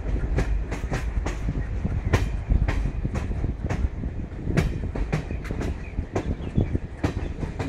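Passenger train running at speed, heard from an open door of a coach: a steady low rumble with the wheels clacking over rail joints, sharp clacks coming several times a second, unevenly spaced.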